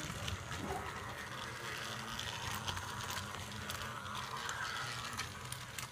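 Remote-controlled Trackmaster Thomas toy train running on plastic track: a small electric motor's steady hum with scattered light clicks of the wheels and track.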